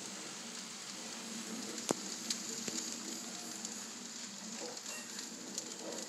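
N scale model trains running on the layout track: a steady rolling hiss with occasional small clicks from the wheels, the sharpest about two seconds in.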